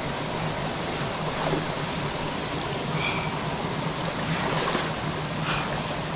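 Steady rush of a jungle waterfall pouring into a pool, with a faint short high chirp about halfway through.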